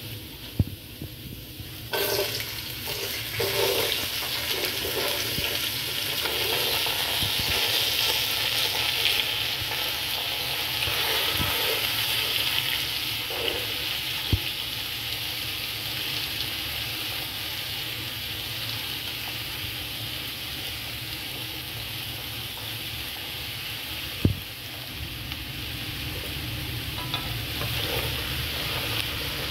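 Diced vegetables (yam, carrot, onion and more) going into hot oil with tempered shallots and dried chillies, sizzling sharply about two seconds in and settling into a frying hiss that slowly eases. A wooden spatula stirs them, with three sharp knocks against the pot.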